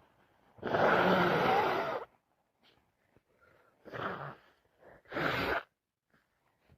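Three loud, wet nasal bursts from a person with a heavy head cold. The first is the longest and loudest at about a second and a half; two shorter ones follow about four and five seconds in.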